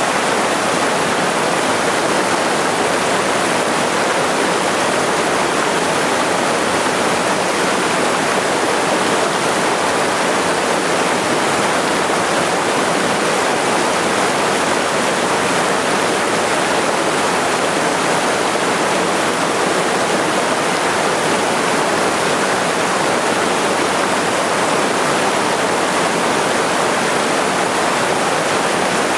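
Small waterfall on a mountain stream pouring into a pool: a steady, unbroken rush of water.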